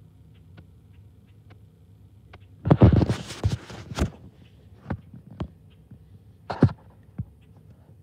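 A small bird pecking and shuffling in sunflower seeds on a window bird feeder's tray, giving faint ticks and then a loud rustling clatter of seed and clicks about three seconds in as it moves around. Several sharp single knocks follow, one louder near the end.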